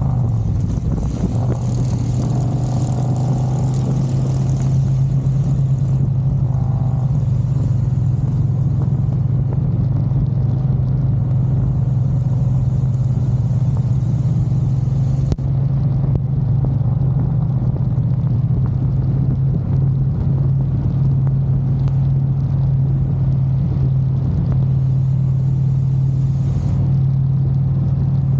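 Harley-Davidson V-twin motorcycle engine running at a steady cruise, a constant low drone, with wind and road hiss on the ride through rain.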